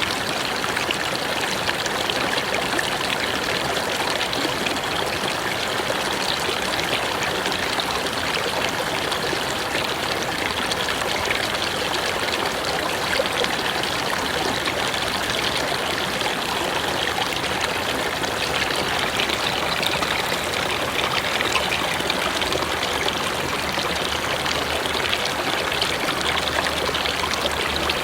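A river flowing steadily: a constant rush of running water with no breaks.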